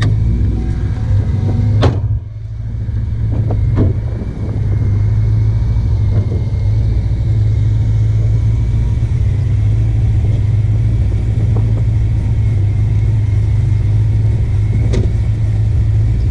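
Fifth-generation Chevrolet Camaro engine idling steadily with a deep, even hum, heard close up, with a few sharp clicks about 2 s in, near 4 s and near the end.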